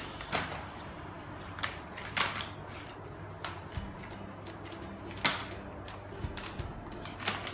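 Scattered light knocks and taps, about six in all, over a low steady hum.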